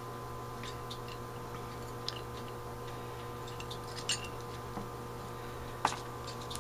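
A few faint, sparse clicks and taps of small carburetor parts (needle, seat and gasket) handled on a paper-covered workbench, the loudest about four and six seconds in, over a steady low hum.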